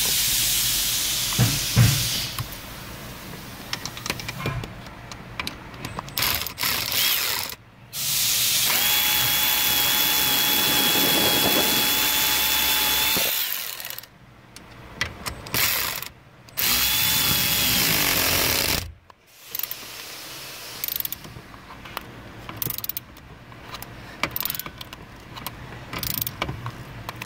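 A power tool runs at a steady pitch, once for about four seconds and again briefly later, with clicks and rattles of tools in between, while the new 8 mm breakaway bolt is driven into the ignition assembly's mounting bracket.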